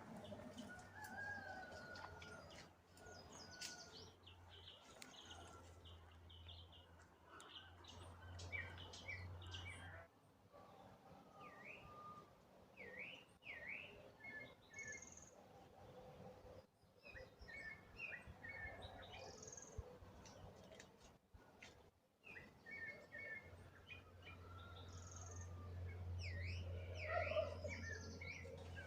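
Several wild birds chirping and calling, with many short high notes and repeated swooping call notes, over a faint low hum that fades in and out.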